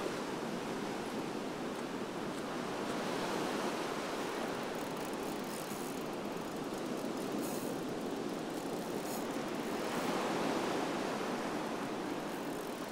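Ocean surf breaking and washing up a shell beach: a steady wash of waves that swells a little now and then.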